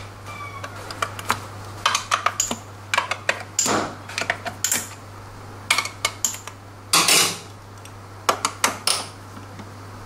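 Hex key and steel bolts clinking as the bolts of a scooter's drive belt (CVT) cover are loosened: an irregular string of sharp metallic clicks and clinks, some ringing, with a longer clatter about seven seconds in.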